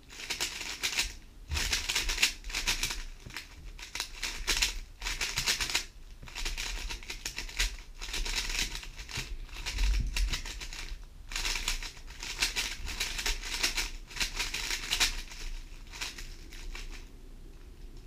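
GAN 11 M Pro 3x3 speedcube being turned at speed: its plastic layers clicking and clacking rapidly in runs of one to two seconds with short pauses between, as algorithms are drilled. The turning dies down near the end.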